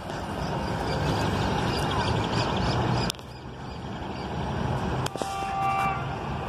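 Loaded freight train of hopper wagons rolling past on the rails: a steady rumble of wheels on track. A few steady high metallic tones ring out near the end.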